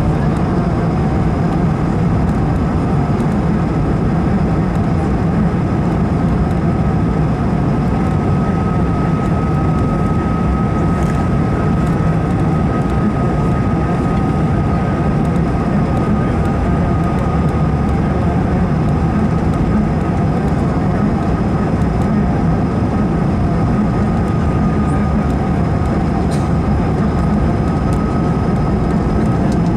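Steady cabin noise of an Airbus A220-300 in flight: its Pratt & Whitney PW1500G geared turbofan engines and the airflow give a steady low rumble, with a thin whine held above it that is clearest through the middle.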